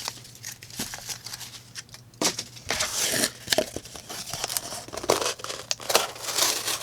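MKM Timavo folding knife's blade slicing through thick cardboard: a scratchy tearing rasp in two main strokes, about two seconds in and again about five seconds in, with small clicks and rustles between.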